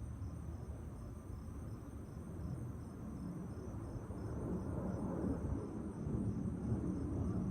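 Distant low rumble of a B-2 Spirit bomber's four turbofan jet engines as it flies over, growing louder about halfway through.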